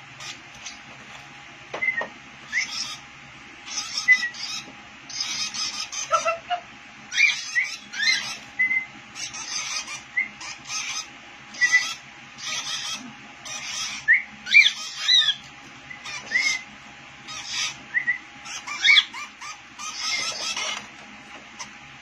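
Lovebirds chirping in short, sharp bursts, about one a second, some calls sweeping quickly up or down in pitch.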